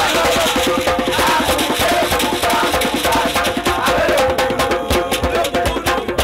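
Mbolé music with a fast, dense percussion beat of sharp clicking hits and a melodic line over it.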